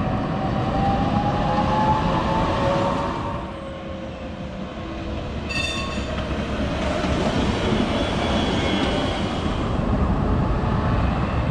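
Tram running on its rails, with a motor whine that rises in pitch over the first few seconds. A short ringing tone comes about halfway through, and a high squeal follows a little later.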